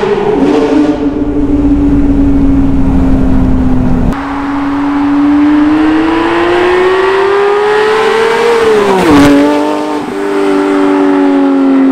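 2018 Porsche 911 GT3's naturally aspirated 4.0-litre flat-six through a Brooke Race Exhaust rear bypass system, running hard. Its note climbs steadily for several seconds as the car accelerates, then drops sharply with a crackle about nine seconds in as the car passes, and holds a steady tone as it drives away.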